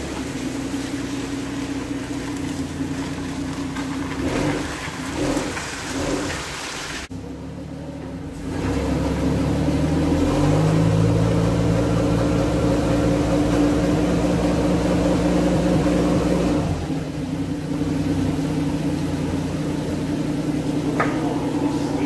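Engine of heavy equipment running steadily. It runs at higher revs from about ten seconds in and drops back again near seventeen seconds.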